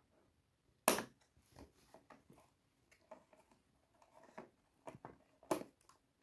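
Scissors and hard plastic toy kitchen pieces being handled: scattered clicks and light knocks, with a sharp click about a second in and another about five and a half seconds in.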